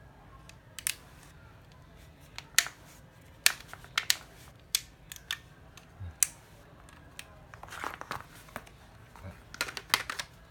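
Sharp clicks and knocks from handling a Nati 9.6 V cordless drill as it is tried again: plastic parts and trigger clicking with no motor running, so the drill does not start. The clicks come singly at uneven intervals, with a quick cluster near the end.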